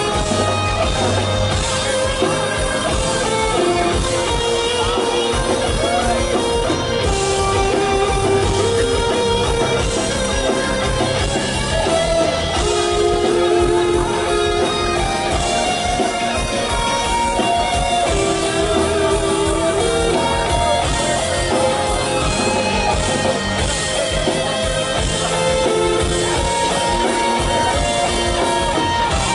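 Rock band playing live through a concert PA, with electric guitars over a steady drum beat, heard from out in the crowd.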